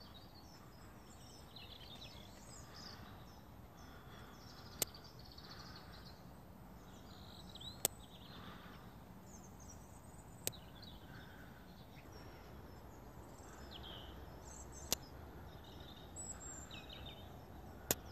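Faint birdsong: scattered chirps and short calls over a low outdoor hush, broken by five sharp clicks a few seconds apart.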